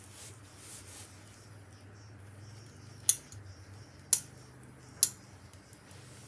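Steam iron fed by a hose from a hanging water supply, giving three short hisses of steam about a second apart while a seam is pressed, over a low steady hum.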